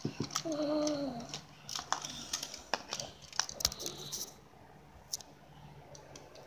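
A child's short voiced sound, then a run of clicks and rustles as a plastic action figure is handled close to the phone's microphone, settling to quieter handling noise after about four seconds.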